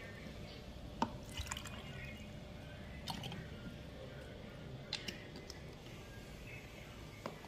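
Water dripping from a plastic water bottle into an enamel mug: a few separate drips and small splashes spread over several seconds.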